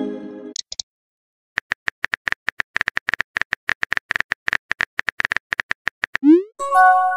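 Chat-app sound effects. A chord of tones fades out at the start. Then come rapid keyboard clicks, several a second, for about four and a half seconds as a message is typed. Near the end a quick rising swoop and a short chord of tones sound as the message is posted.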